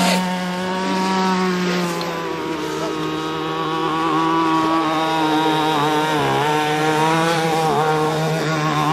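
Twin electric motors of a Genesis RC racing boat on a 6S battery pack, running at speed with a steady high whine. The pitch settles a little lower about two seconds in, then dips briefly twice in the second half.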